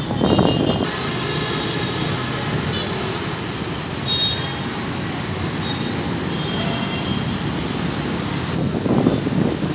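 Dense city road traffic of motorbikes and cars passing below: a steady rumble of engines and tyres.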